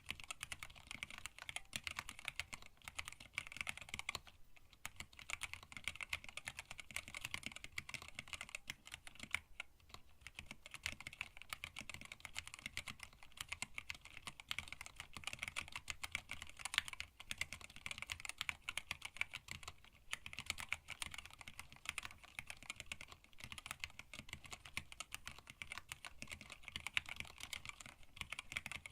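Fast, continuous typing on a hand-wired split mechanical keyboard with Tealios linear switches, blank PBT keycaps and an acrylic case: a dense patter of key clacks, with brief pauses about four, nine and a half, and twenty seconds in.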